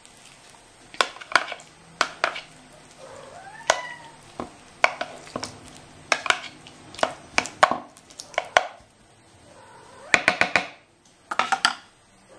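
A metal spoon clinking and scraping against a can and the cat's food bowl as wet cat food is spooned out: a string of sharp clinks, with quick rattling clusters near the end. A short meow comes about three and a half seconds in.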